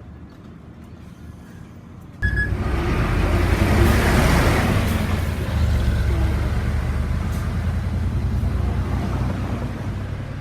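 A faint low hum, then about two seconds in a heavy road vehicle's engine rumble and road noise come in abruptly. The noise swells and then slowly eases off.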